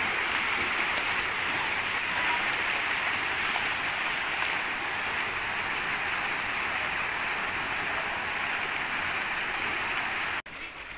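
A small waterfall pouring and splashing steadily into a shallow stream pool. The sound cuts off suddenly near the end, leaving a much quieter background.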